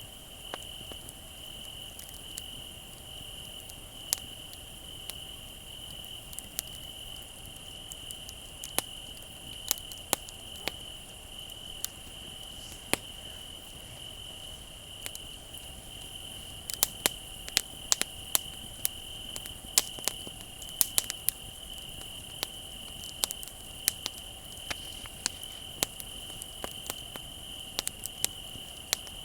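Campfire crackling with scattered sharp pops, which come thicker in the second half, over a steady high trill of crickets.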